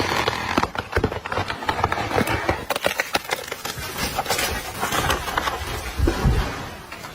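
Wood cracking and snapping in many quick, sharp cracks, with a heavier low thud about six seconds in.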